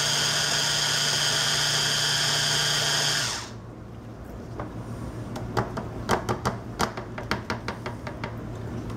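Braun stick blender on its chopper attachment running steadily while grinding a garlic and feta dressing, cutting off suddenly about three seconds in. After that comes a string of light plastic clicks and knocks as the motor unit and lid are lifted off the chopper bowl.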